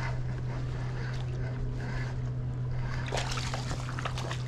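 Steady low hum of a kayak's electric trolling motor, with water splashing as a hooked fish is reeled up to the kayak, the splashing loudest about three seconds in.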